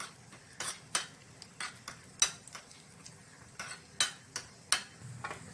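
Metal spoon clinking and scraping against a small tadka pan while stirring chopped cashews in ghee: about a dozen irregular clinks, the sharpest a little after two seconds and around four seconds in.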